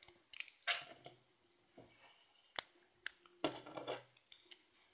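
LEGO plastic pieces being handled and pressed together: scattered clicks and short rustles, with one sharp snap about two and a half seconds in.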